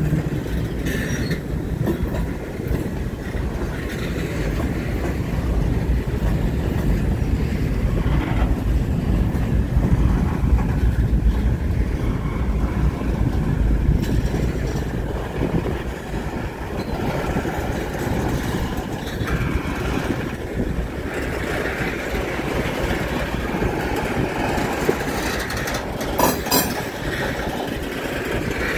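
Freight train cars (covered hoppers and tank cars) rolling past on the rails with a steady low rumble. Two sharp knocks come near the end.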